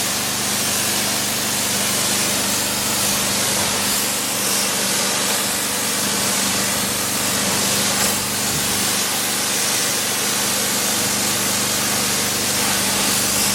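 Pressure washer spraying: the steady hiss of the high-pressure water jet over the even hum of the machine's motor.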